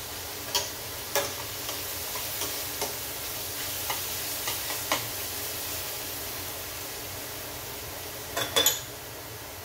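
Sautéing mushrooms, shallots and garlic sizzling steadily in oil in a pan, with a few sharp clicks of a utensil against the pan and a louder clatter near the end.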